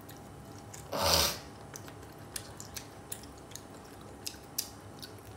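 Close-up eating sounds: a short, loud breathy hiss about a second in, then scattered small wet clicks and smacks of chewing and of fingers working rice on the plate.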